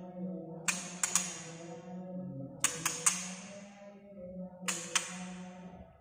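White-rumped shama giving sharp 'tak' clicking calls in quick groups of two or three, about every two seconds. A steady low hum runs underneath.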